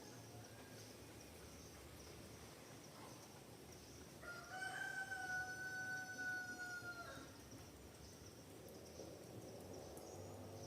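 A rooster crowing once: a single long, drawn-out call lasting about three seconds, starting about four seconds in and dropping off at the end. Insects keep up a steady high hum underneath.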